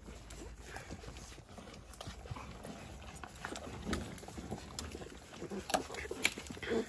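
Young Malinois puppies eating rice from a plastic bowl on a tiled floor: scattered clicks and taps of mouths, paws and bowl, starting after a scoop scrapes rice out of a metal pot.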